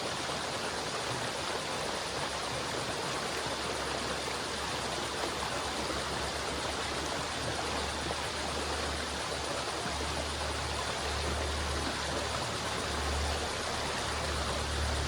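River water flowing steadily in an even rushing babble, with a deep low rumble under it that grows stronger in the second half.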